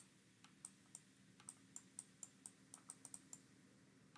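Faint, irregular clicks and taps of a pen stylus as words are handwritten on a digital flipchart, several a second, thinning out near the end.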